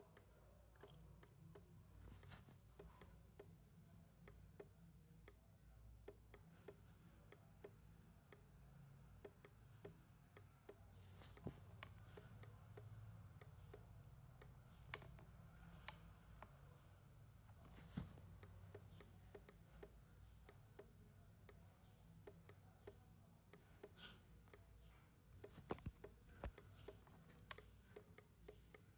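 Near silence: faint room tone with a low hum and scattered faint clicks.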